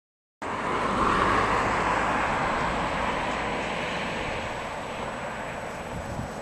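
Rushing noise of a vehicle passing on the street, cutting in abruptly just under half a second in, loudest about a second in, then slowly fading.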